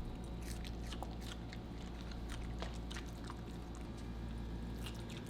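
A Pomsky puppy chewing a piece of cucumber: a quick, irregular series of crunches.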